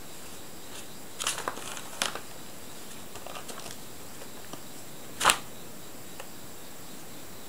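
Crackly rustles of a brown paper bag and loose papers, with scuffs on the tatami mat, as a mother cat and kitten wrestle on them. The rustles come in a few short bursts, the loudest about five seconds in, over a steady faint hiss.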